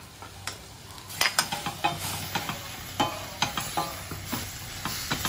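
Wooden spatula stirring sliced bitter gourd and chilli in a stainless steel pan, with repeated sharp scrapes and knocks against the metal over a steady sizzle. The stirring starts about a second in.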